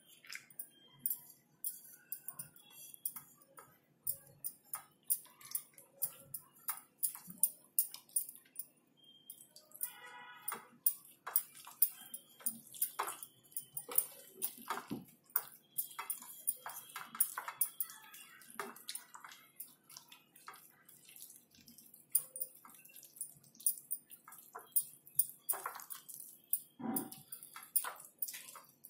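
Hand mixing flour batter in a ceramic bowl as water is poured in a little at a time: rapid, irregular wet squelches and clicks, with a thin trickle of pouring water.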